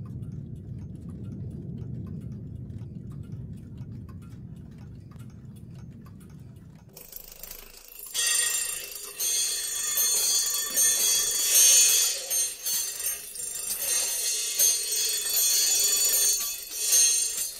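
A low rumble that fades away, then, about seven seconds in, many alarm clocks and chiming clocks start ringing all at once in a loud, jangling wall of bells.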